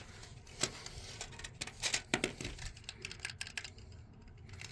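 Scattered small plastic clicks and taps as a damaged smoke alarm is handled and its test button pressed, with no beep in answer: the button no longer works.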